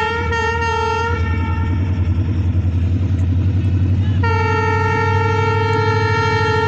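ZCUP-30 diesel locomotive sounding its horn in one steady note, breaking off about a second in and starting again after about three seconds, then held. Under it the locomotive's engine rumbles loudly as it pulls away with its train.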